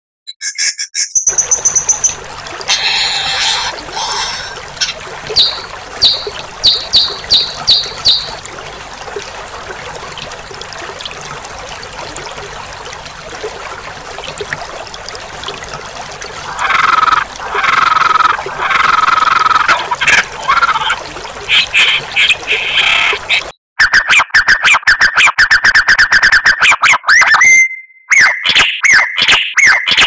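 Songbirds calling in a bird-song training recording over a steady background hiss: a run of about five quick high notes, then lower repeated calls. About 23 seconds in, a sudden cut brings fast, rattling chatter made of rapid ticks.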